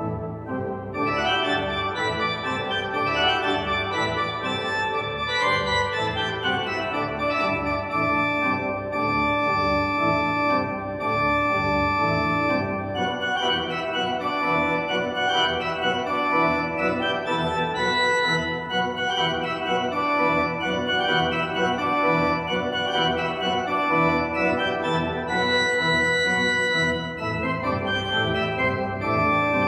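Pipe organ (a 2010 Holtkamp) playing a sustained, many-voiced passage of held chords, with bright upper ranks sounding over the full texture.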